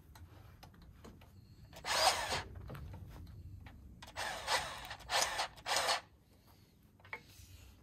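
Makita cordless grease gun's motor running in short bursts, once about two seconds in and then three times in quick succession, pumping grease into a loader pivot fitting.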